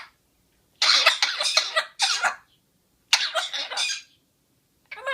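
A pet coughing in two harsh fits of rapid coughs, the first about a second and a half long and the second under a second, with one short cough near the end.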